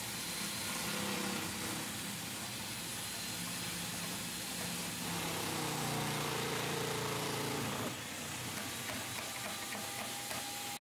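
Electric food processor motor running as celery stalks are pushed down the feed chute and cut: a steady whir with a hiss, dropping slightly in loudness about eight seconds in.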